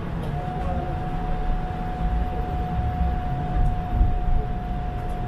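Toronto streetcar riding along, heard from inside the car: a steady low rumble, with a single unchanging tone that comes in shortly after the start and holds.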